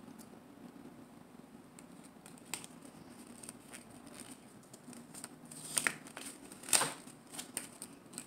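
Folded paper leaflet being handled and unfolded, light crinkling and rustling with a few sharper crackles, the two loudest a little past halfway through.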